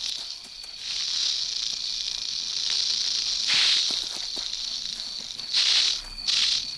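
Porcupine rattling its raised quills in defence: a dry hissing rattle that comes in surges, one long stretch and then sharper bursts, loudest about three and a half seconds in and twice near the end. Insects trill steadily underneath.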